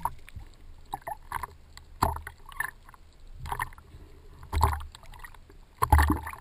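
Small sea waves slapping and splashing against a camera held at the water surface, in irregular bursts roughly once a second, the strongest about four and a half and six seconds in.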